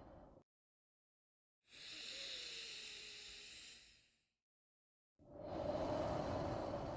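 Slow, deep human breathing, paced as a breathing exercise. The end of one breath fades out, then after a pause comes a higher, hissing breath of about two and a half seconds. After another pause a fuller, lower breath begins about five seconds in.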